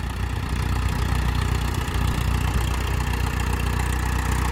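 Mahindra Arjun 555 tractor's diesel engine running steadily under load as it pulls a laser land leveller across loose soil.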